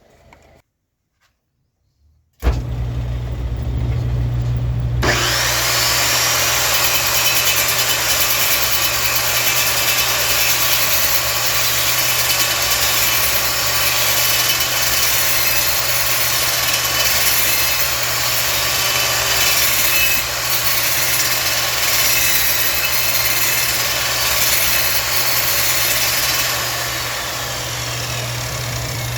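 A wood lathe's motor hum comes in suddenly about two seconds in. A few seconds later a turning tool starts cutting into the spinning wood, a loud steady cutting noise over the hum.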